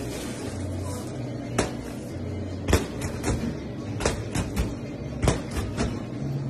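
A long chef's knife pressed down through a deep-dish pizza's crust, knocking about nine times against the cardboard round and steel counter, over a steady low kitchen hum.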